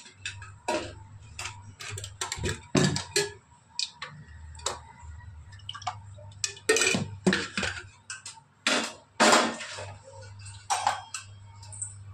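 Irregular clicks, taps and clatter of kitchen utensils being handled around an aluminium pressure cooker, with a steady low hum underneath.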